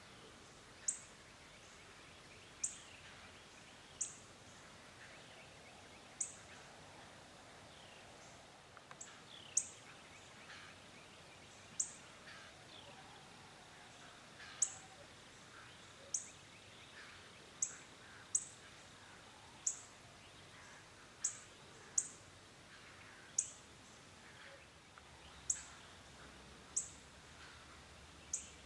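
A small bird repeating a sharp, high chip note every one to two seconds, over fainter calls of other birds and a quiet outdoor background.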